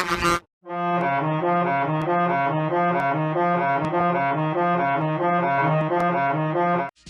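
An edited sound-effect variation played as music: a low pitched tone runs through a quick, steady repeating note pattern of about three notes a second. A brighter tone cuts off just before it begins, and the pattern itself stops abruptly near the end.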